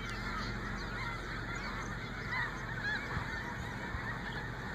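A large flock of geese honking, with many short calls overlapping continuously.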